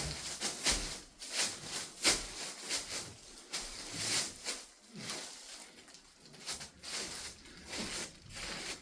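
Irregular soft scuffs and rustles of someone walking through an empty carpeted room, with handling noise close to the microphone.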